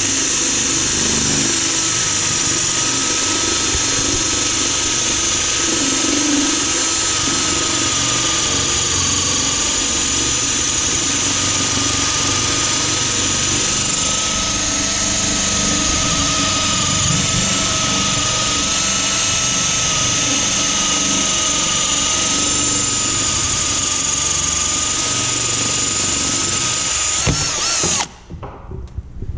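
Power drill turning a 1-3/8 in. diamond hole saw, cutting into a quartz countertop: a steady, loud whine that holds throughout, then stops abruptly near the end.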